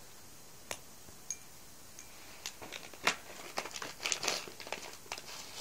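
Fizzy-candy wrappers being handled and crinkled: a few separate crackles, then from about halfway a close run of crinkling and rustling.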